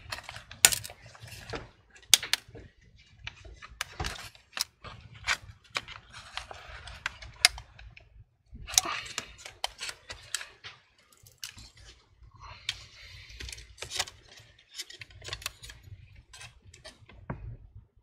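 Irregular sharp plastic clicks and taps with some scuffing, from hands handling the opened Lenovo IdeaPad 3 laptop's chassis and its broken I/O board.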